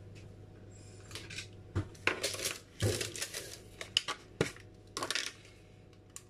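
Kitchen utensils being handled on a counter: a string of clinks and knocks with some rustling between about one and five seconds in, busiest around two to three seconds, over a low steady hum.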